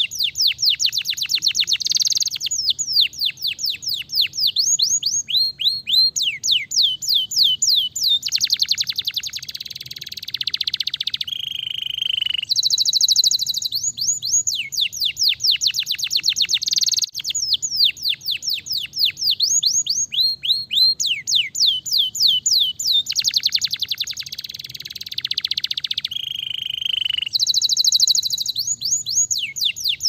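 Domestic canary singing a long, high-pitched song of rapid trills and runs of quick falling notes, with a lower held note now and then.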